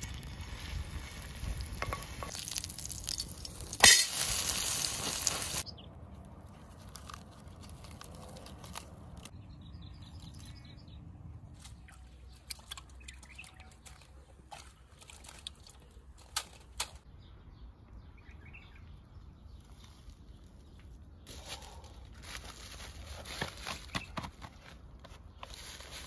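Kookoo batter of eggs and chopped wild greens poured into hot oil in a wide iron griddle pan, sizzling loudly for the first five or six seconds, louder still about four seconds in. Then quieter scattered rustling and crackling of dry leaves being stepped and crawled on.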